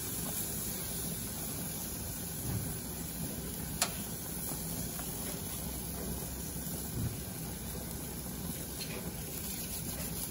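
Steady hiss and sizzle from a hot grill with food on the grates, with one sharp click about four seconds in and a couple of soft knocks.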